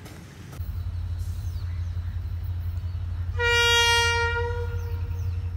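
A steady low rumble, then a train horn sounding one long single-pitched blast of about two seconds, starting a little past halfway.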